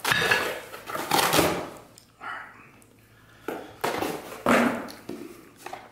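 Cardboard Priority Mail shipping box being torn open and its contents pulled out. The cardboard and packaging scrape and rustle in several short, rasping bursts with brief pauses between them.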